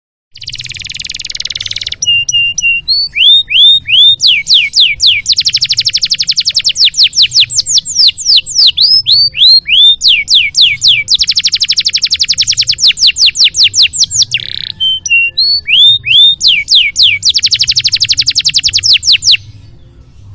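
Canary singing a long, loud song of fast rattling trills alternating with runs of falling whistled sweeps and repeated chirps. The song stops about a second before the end.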